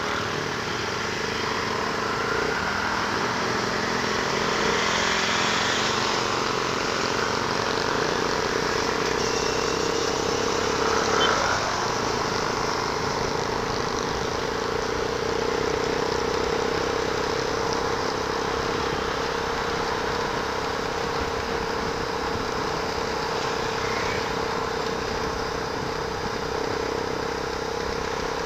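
Motorcycle engine running steadily as the bike rides along a city road, mixed with wind and road noise on the bike-mounted microphone.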